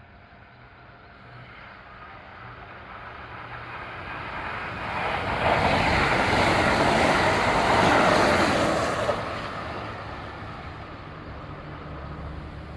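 Kintetsu electric train passing at speed: its rumble builds, is loudest for a few seconds in the middle, then fades away.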